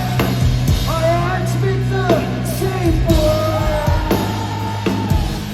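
Rock band playing live, with a singer's wordless sung line that ends in a long held note.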